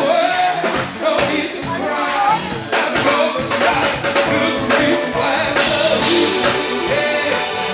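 A band playing with a singer's voice carrying the melody over a steady drum beat.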